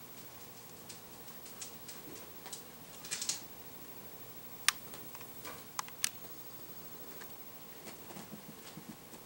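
Scattered light clicks and ticks from Yorkshire terrier puppies scampering and playing among plush toys, with a brief cluster about three seconds in and three sharper clicks around the middle.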